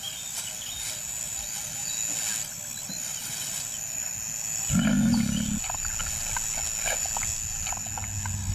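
A lion calling once about halfway through: a single low call about a second long, over a steady high-pitched whine in the background.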